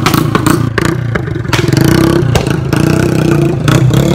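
Motorcycle engine running and revving, with many sharp cracks and pops over it.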